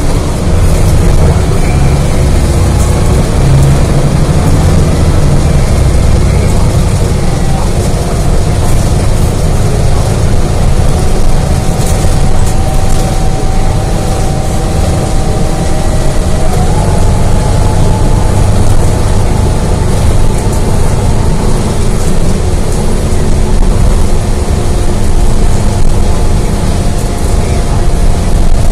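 A 2018 Gillig Low Floor CNG transit bus running under way, heard from inside the cabin: a steady low rumble with a whine over it that steps up in pitch about halfway through.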